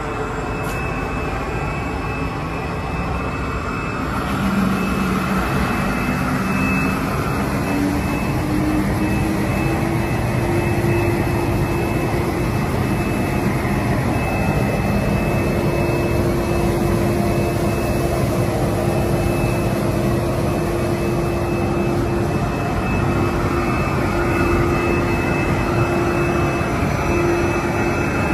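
SDA-1300 relief sanding machine running with its rotating sanding drums working MDF cabinet fronts on the conveyor: a steady, dense whir and rush of air. It gets louder about four seconds in, and a humming tone rises in pitch over several seconds before holding steady.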